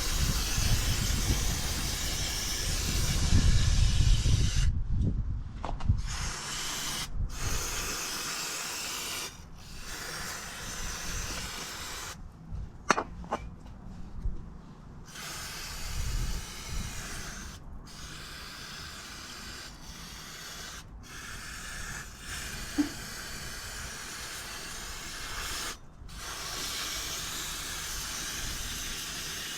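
Aerosol brake cleaner hissing as it is sprayed onto a motorcycle brake caliper and its pistons to clean off the dirt. It comes in many long bursts of a few seconds each, broken by short pauses.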